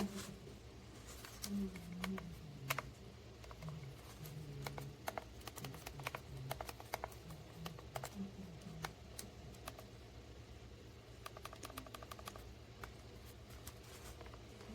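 Keys being typed on a keyboard: scattered sharp clicks, with a quick run of keystrokes about eleven seconds in.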